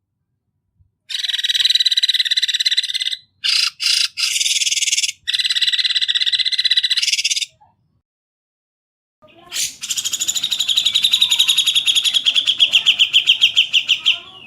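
Harsh, buzzing songbird calls from a bird-tutor recording: three rasping buzzes in the first half, then, after a pause, one long trill that grows more sharply pulsed toward the end.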